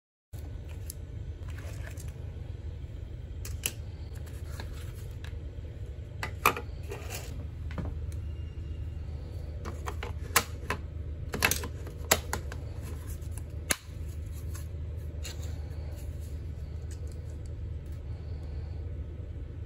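Sharp plastic clicks and snaps as AA batteries are fitted into a small plastic toy RC car remote and its battery compartment is handled, over a steady low hum.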